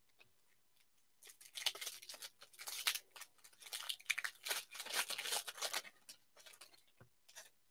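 Football card pack's wrapper crinkling and tearing as it is ripped open by hand, a run of rustles starting about a second in.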